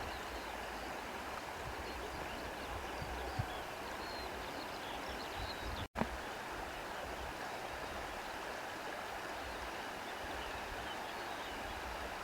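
Wind blowing steadily through grass, with a low rumble of wind buffeting the microphone. The sound drops out for an instant about halfway through.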